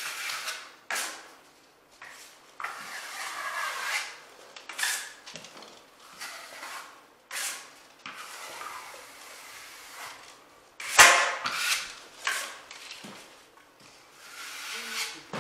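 Steel taping knife scraping drywall joint compound across the wall in repeated strokes, wiping off excess mud. There is one sharp knock about eleven seconds in.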